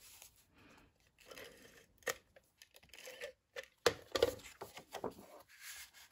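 Cardstock panel rustling and scraping as a hand rubs and slides it on a craft mat and lifts it, with a few sharp crinkling taps about two and four seconds in.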